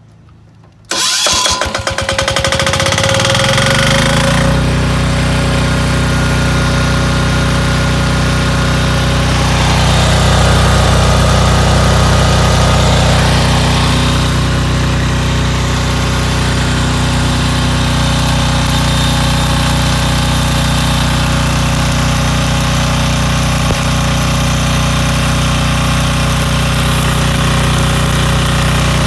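Engine-driven welding generator starting about a second in, its pitch rising over a few seconds as it comes up to speed, then running steadily at a constant speed.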